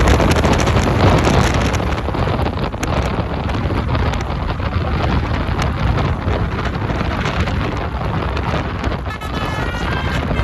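Loud, steady rush of highway traffic and wind buffeting the microphone. About nine seconds in, a bus's basuri musical horn starts a tune of short stepped notes.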